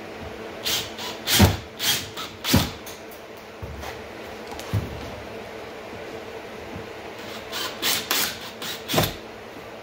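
DeWalt cordless drill/driver driving screws through PVC pipe holders into wood, in short bursts: a cluster about a second in and another near the end.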